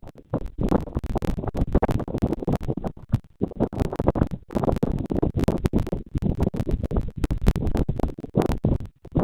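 Irregular scratching and crackling with a low rumble, close to the nest camera's microphone, breaking off briefly a few times: contact noise on the nest material or wind buffeting the microphone.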